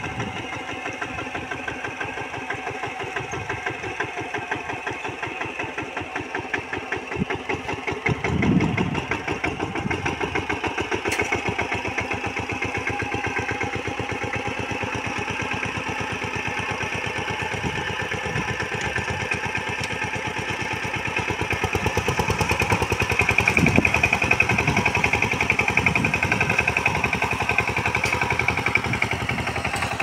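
Single-cylinder diesel engine of a two-wheel power tiller running with a rapid, steady chugging beat as it is driven on cage wheels into a flooded paddy. It gets louder in the second half as the engine takes up the load in the water and mud.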